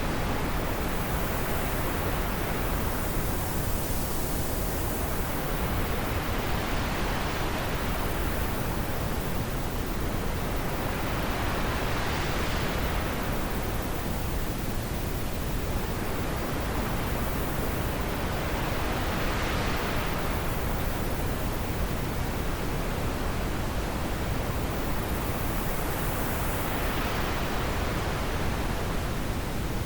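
Steady rushing wind noise. Its hiss swells and fades in slow, even waves about every seven seconds.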